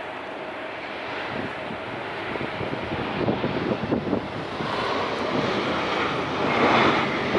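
Airliner's engines running, a steady rumble that grows louder as the aircraft draws nearer, with a whining tone coming in about two-thirds of the way through.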